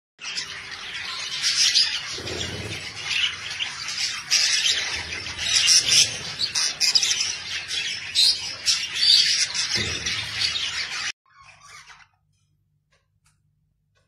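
A flock of budgerigars chattering, a dense mix of chirps, warbles and squawks that cuts off suddenly about eleven seconds in.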